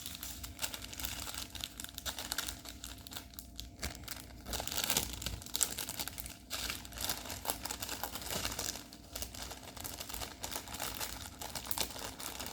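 Plastic packaging crinkling and rustling as it is handled, with an irregular crackle of small rustles and crunches all the way through.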